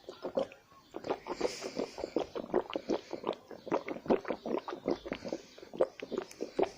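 Water sounds made in a person's mouth: a quick, uneven string of short hollow pops, about five a second.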